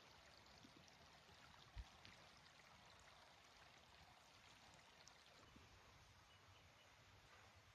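Near silence: a faint steady hiss, with one soft low thump a little under two seconds in.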